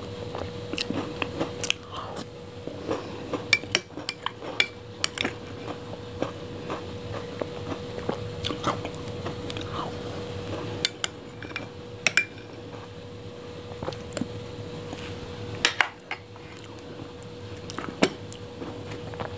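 Close-miked eating of ice cream: a metal spoon scrapes and clinks against a glass dessert bowl, several clinks ringing briefly, between wet biting and chewing mouth sounds. A steady faint hum runs underneath.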